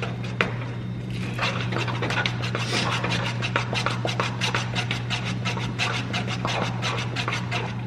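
Rapid, irregular scraping and rubbing of a utensil stirring in a cooking pan, over a steady low hum.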